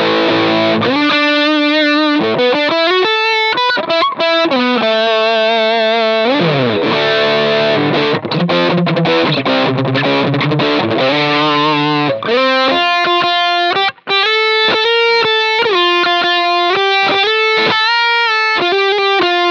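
Stratocaster-style electric guitar played through a Sinvertek Drive N5 Plus distortion pedal with its mid-range switch set to M. A distorted riff of held and sliding notes turns into short choppy notes about twelve seconds in.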